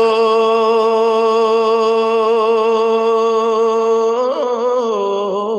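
A man singing a naat unaccompanied, holding one long steady note for about four seconds. Near the end the note breaks into a short wavering run of ornaments.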